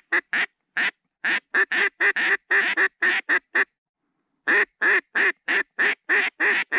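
Mallard duck call blown by a hunter: a long run of loud quacks at about four a second, a pause of about a second just before the middle, then another run. It is calling to draw an incoming flock of mallards.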